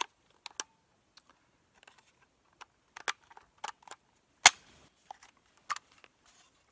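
Metal clicks and clacks from an unloaded AK pistol being handled, its parts knocking and clicking together: a few scattered sharp clicks, the loudest about four and a half seconds in.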